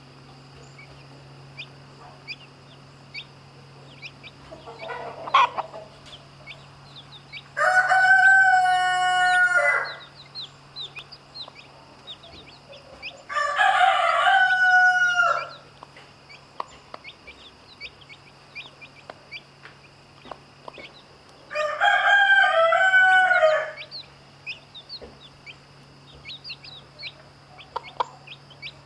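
Rooster crowing three times, each crow lasting about two seconds and spaced several seconds apart. Faint short high chirps come between the crows.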